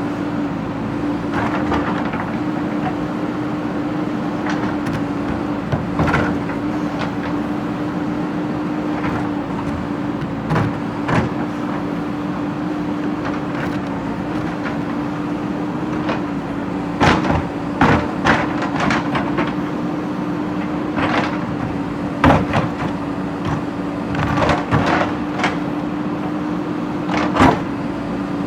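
Backhoe loader's diesel engine running at a steady pitch, with irregular clanks and scrapes as its bucket works through broken brick and stone; the knocks come more often in the second half.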